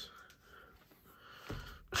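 Mostly quiet, with faint handling of a microfibre cloth being picked up and spread flat on a mat, and a short soft sound near the end as it is pressed down.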